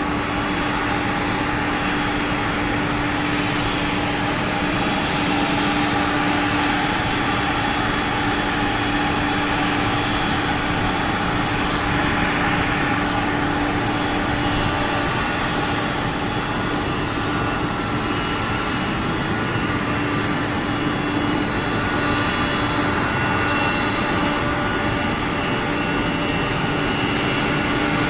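Jet airliner engines running steadily: an even rush of noise with several steady whining tones, holding level throughout.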